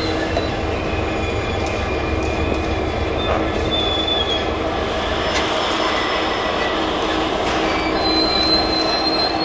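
Class 66 diesel-electric locomotive's two-stroke EMD engine running with a steady low rumble and hum as the loco rolls slowly past. A thin high-pitched wheel squeal from the rails comes in near the end.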